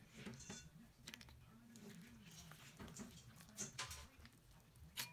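Faint, scattered soft clicks and rustles of hands picking pumpkin seeds out of wet pulp on newspaper, with a sharper click near the end.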